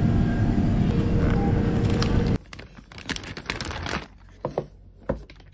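Steady shop background noise with a low hum, cut off suddenly about two seconds in by a paper shopping bag rustling and crinkling as it is handled and opened, with a few sharp crackles near the end.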